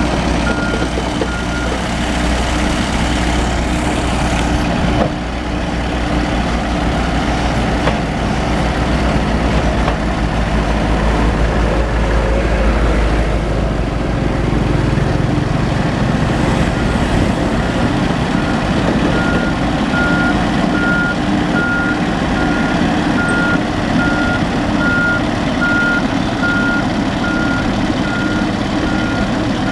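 Backhoe's diesel engine running steadily under work, with its reversing alarm sounding a regular series of high beeps at the start and again from about two-thirds of the way through.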